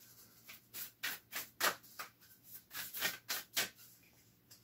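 A deck of oracle cards being shuffled by hand: a run of quick, crisp strokes of card against card, irregular at two to three a second, with a short pause partway through.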